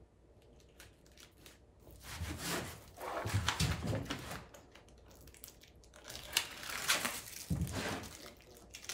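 Mylar sheet crinkling and rustling as it is handled and smoothed down onto a panel, in two stretches, about two seconds in and again about six seconds in, with some dull handling bumps.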